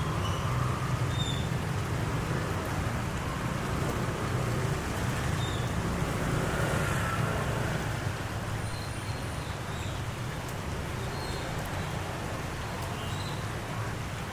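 Steady low rumble with a hiss over it: continuous outdoor background noise, with a few faint short chirps high above it.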